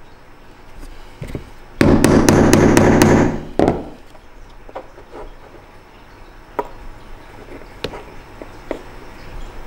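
Screwdriver tapping a new bearing into a ZMX FinX brushless motor's bell through a cotton pad, seating it. A quick run of about six loud ringing taps comes about two seconds in, then one more, followed by a few light clicks as the parts are handled.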